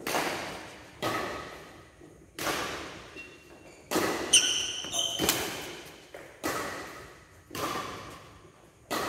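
Badminton rackets striking a shuttlecock in a fast doubles rally: about eight sharp hits roughly a second apart, each echoing in a large hall. A short high squeak comes about four seconds in.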